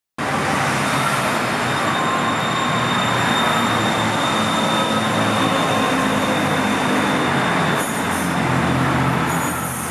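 BTS Skytrain electric train pulling out of an elevated station and running away along the track, with a steady high whine over the running noise that fades out about eight seconds in.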